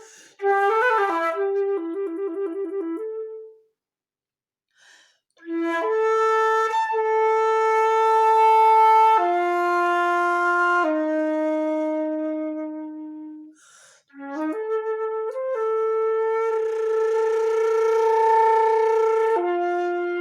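Solo flute playing: a quick run of short notes, a pause of about two seconds, then long held notes stepping down in pitch. After a brief break come more sustained notes with a breathy edge.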